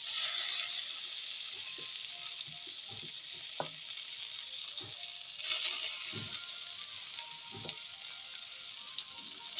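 Green pea and ginger paste sizzling in hot oil in a kadai. The sizzle swells loudly as paste drops in at the start and again about five and a half seconds in, with a few light knocks in between.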